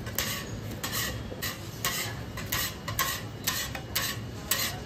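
Metal scraper scraping katayef pancakes off a hot metal griddle, a quick series of short scrapes, two or three a second, metal on metal.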